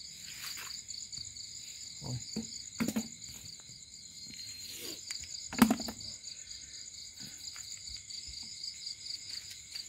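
Insects trilling steadily in two high-pitched, pulsing bands, with a few short knocks and rustles of handling, the loudest a sharp knock about five and a half seconds in.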